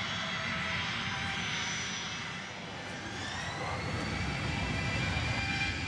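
Jet airliner engines with a steady rushing whine and several steady tones. About three seconds in, a higher whine rises in pitch as the engines spool up.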